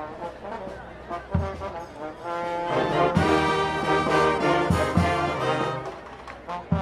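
Brass marching band playing, with trombones and trumpets over bass-drum beats. The band swells louder about two seconds in and eases back near the end.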